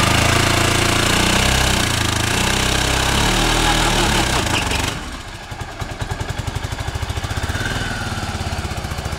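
Suzuki Burgman 400 scooter's single-cylinder engine held at high revs in a burnout, the rear tyre spinning against the concrete with a loud hiss; about five seconds in the revs drop off suddenly and it settles to a pulsing idle.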